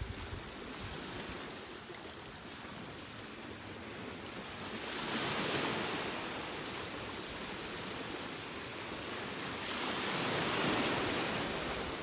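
Surf washing onto a pebble shore, the waves swelling twice, about five seconds in and again near ten seconds.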